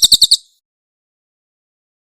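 Cililin bird's rapid, high-pitched burst song (tembakan): a fast string of evenly spaced notes, about thirteen a second, that cuts off about half a second in, then silence.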